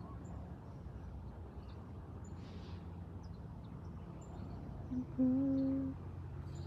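A person humming: a short hum about five seconds in, then one held note for about a second. Underneath is a steady low outdoor drone with a few faint high chirps.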